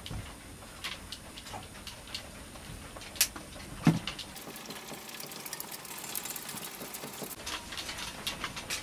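Hands handling small parts at a marine water pump: scattered light clicks and taps, with two sharper knocks a little over three seconds and nearly four seconds in. After that comes a soft rustle lasting a few seconds as a thin paper gasket is fitted over the pump body.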